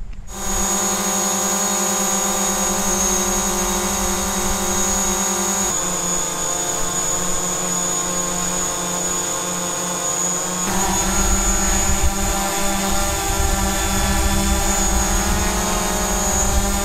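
DJI Mavic Pro quadcopter hovering: a steady propeller hum made of a stack of even tones, with a thin high motor whine above it. The sound changes abruptly twice, about six and eleven seconds in, as recordings with different propeller sets follow each other: low-noise propellers, then two low-noise and two original propellers mixed, with more low wind rumble in the last part.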